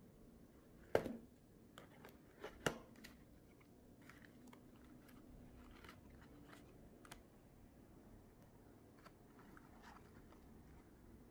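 Paperboard meal carton being opened by hand: two sharp snaps about one and three seconds in as the sealed flaps pull apart, with smaller crackles around them, then faint light ticks and rustles as the card flaps are folded back.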